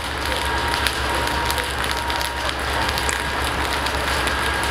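Dry grass and pine litter burning in a forest fire: a steady crackle of many small snaps over a low rumble.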